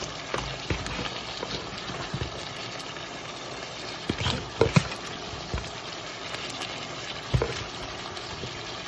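A spoon scraping seasoning out of a pan and knocking against the metal pans several times, the sharpest knocks a little before five seconds in and again about seven seconds in, over the steady sizzle of stew cooking in its pot.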